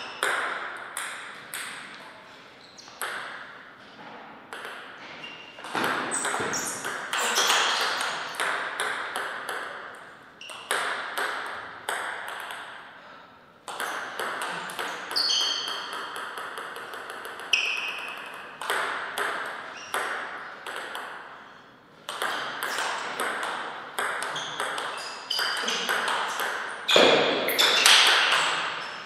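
Table tennis rallies: a plastic ball clicking sharply off the paddles and the table in quick runs of hits, with short pauses between points.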